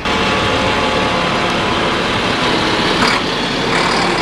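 Large tractor's engine running steadily under load as it pulls a zone-builder subsoiler through dry, compacted ground and passes close by, with one short knock about three seconds in.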